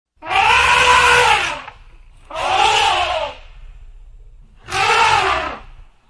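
Elephant trumpeting three times, each call about a second long, rising then falling in pitch, over a low rumble.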